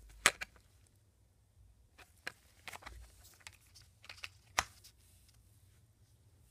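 Sharp clicks and taps of silver bars and their hard cases being handled and set down: a loud click just after the start, a run of smaller clicks in the middle, and another loud click past the middle.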